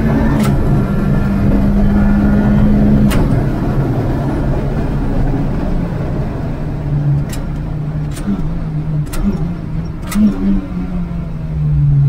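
Turbocharged 2.0 16V engine of a Mk2 VW Golf pulling hard in the cabin, flat-shifted up twice through a sequential shifter, each change a sharp click with only a brief power cut. It then eases off under braking and is downshifted about four times, each with a click and a heel-and-toe throttle blip.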